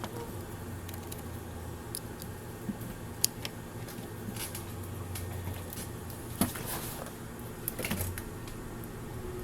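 A few scattered small clicks and taps from handling small objects, over a steady low electrical hum.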